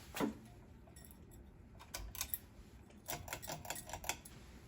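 Hunter Passport II ceiling fan just switched to low speed, with light, irregular clicking in small clusters and a denser run near the end.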